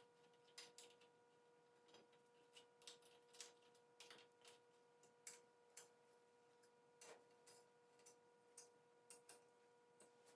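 Near silence: faint, irregular small clicks, one or two a second, over a faint steady hum.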